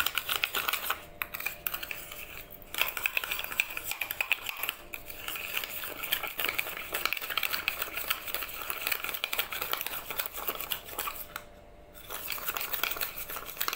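A metal spoon rapidly beating instant coffee, sugar and a little warm water in a steel bowl, with fast, rhythmic scraping and clinking against the bowl and a few brief pauses, the longest about twelve seconds in. This is the hand-whipping that turns the mixture from brown to a frothy cream colour for beaten coffee.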